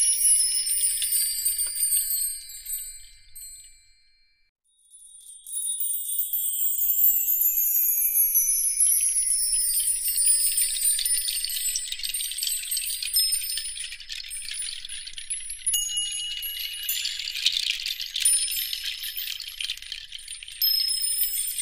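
Tinkling wind-chime tones in repeated descending runs of high, bell-like notes. They fade away about three seconds in, go nearly silent for a moment, then return about five seconds in and carry on.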